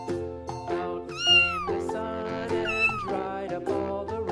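A cat meowing twice, a longer meow about a second in and a shorter one near three seconds, over steady background music.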